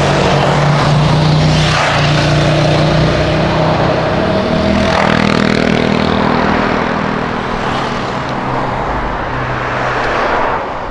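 Car engines accelerating past in traffic, a loud, continuous engine note that steps up and down in pitch as the cars rev and shift, with tyre noise underneath.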